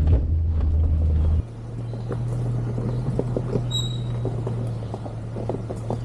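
A 1999 Jeep Cherokee XJ crawling a steep off-road trail. The engine runs loudly, then drops abruptly to a quieter, steady running about a second and a half in, with scattered knocks and creaks from the truck working over rough ground.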